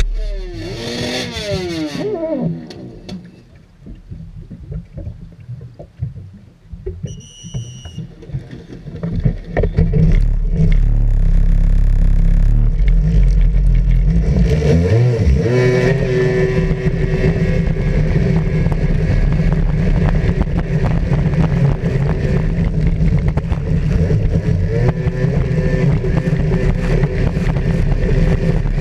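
Racing jet ski engine blipped and revved at the start line, with a short high beep around seven seconds in. From about ten seconds in the engine runs loud and steady at full throttle, with water rushing past, as the ski races.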